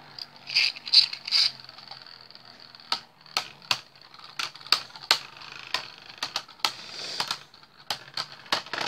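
Two Beyblade Burst spinning tops battling in a plastic stadium, clashing again and again in sharp, irregular clacks over a faint steady whir of spinning. The loudest hits come in the first second and a half.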